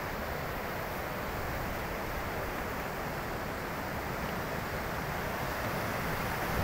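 Steady rushing of the Bhagirathi river's glacial meltwater torrent, an even noise with no break or change.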